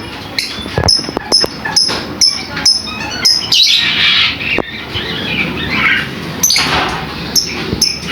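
Lovebird giving a run of short, shrill, high-pitched chirps, about two a second, with sharp clicks in between.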